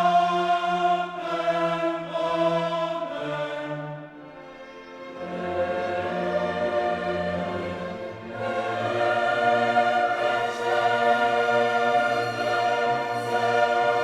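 Background music: a choir singing long held notes over an orchestra, dipping quieter for a moment about four seconds in.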